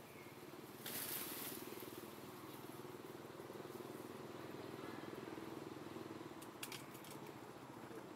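A short rustle of leaves and twigs about a second in as a young monkey climbs through a tree's branches, then a few quick twig clicks near the end, over a steady low hum.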